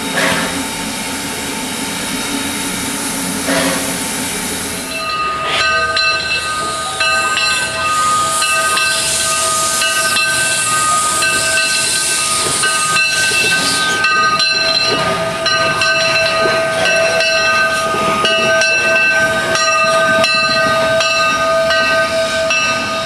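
Granite Rock Co. No. 10 steam locomotive: first a steady hiss of steam while it stands. About five seconds in this changes to the engine on the move, with a rhythmic beat of chuffs and clicks under several steady high-pitched tones held to the end.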